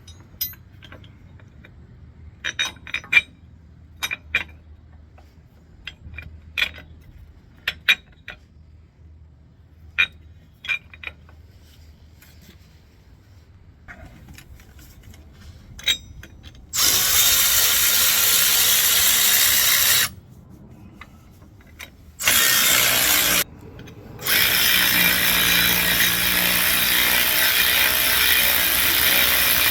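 Scattered clicks and taps of hand tools working on the truck, then a power tool starts a little over halfway through and runs in three long bursts with two short pauses.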